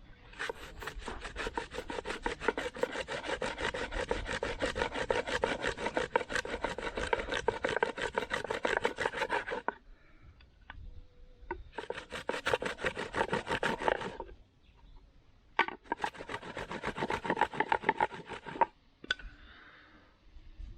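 Two flat wooden boards rubbed rapidly back and forth over a rolled wad of cotton, a fast, even scraping rhythm that heats the cotton by friction toward an ember. A long bout of about nine seconds, then two shorter bouts after brief pauses.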